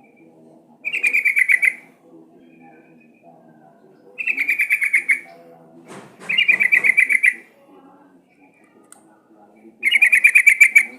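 Sooty-headed bulbul (trucukan) calling: four bursts of rapid, repeated chattering notes, each lasting about a second, a few seconds apart. A faint low murmur sits underneath, and there is a brief knock about six seconds in.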